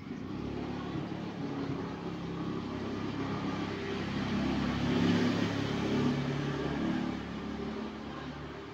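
A motor vehicle's engine running, growing louder to a peak about five seconds in and then fading away.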